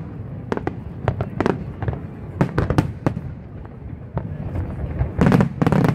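Aerial fireworks shells bursting in quick, irregular succession, several bangs a second, with a denser, louder cluster of bursts near the end.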